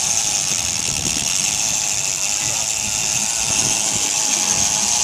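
Penn International 50 big-game reel with its drag buzzing steadily as a hooked blue marlin strips line off the spool under heavy drag, with a boat engine running underneath.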